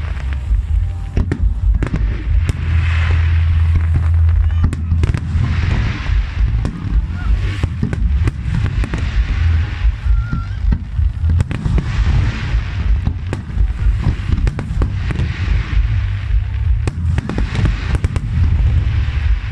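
Aerial fireworks display going off in a dense, continuous barrage: deep booms of bursting shells under many sharp cracks and crackles.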